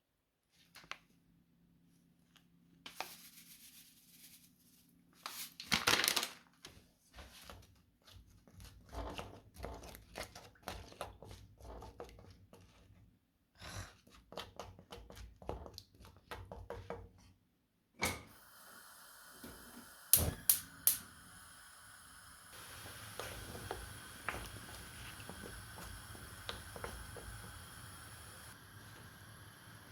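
Irregular small clicks, knocks and rustling, as of objects being handled, with a louder knock about six seconds in. From about eighteen seconds a steady background hiss sets in, with a few sharp knocks over it.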